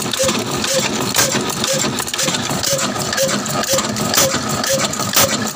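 Old Ruston Hornsby stationary diesel engine (the 'kala' black desi engine) running steadily, with a slow, even beat about twice a second and sharp mechanical clicks over the din of its moving parts.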